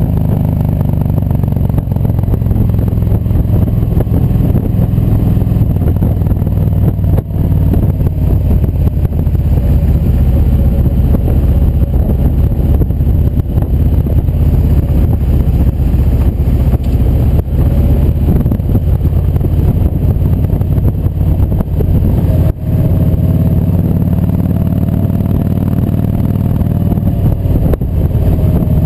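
Kawasaki Vulcan Voyager VN1700's V-twin engine running steadily at cruising speed, heard from the bike itself, with a faint whine that rises and falls as the speed changes. It is briefly quieter twice, once about a quarter of the way in and again about three quarters of the way through.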